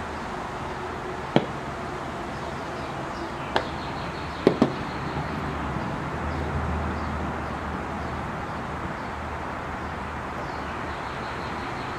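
Four sharp little clicks, the last two a quick pair about halfway through, over a steady background hiss and low hum.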